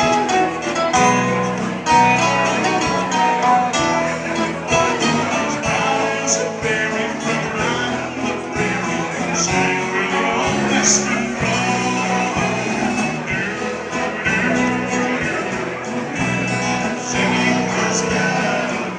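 Live country band playing a waltz, with guitars over a repeating bass line and some singing.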